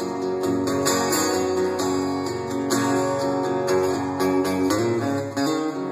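Acoustic guitar strumming chords, the instrumental close of a live country song.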